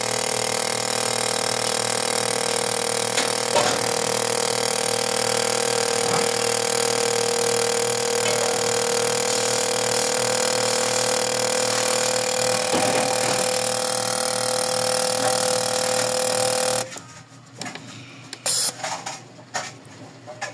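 Fuel injector cleaning and testing machine running with a steady hum and hiss while a leaking injector is cleaned; it cuts off suddenly about seventeen seconds in, leaving a few brief sounds.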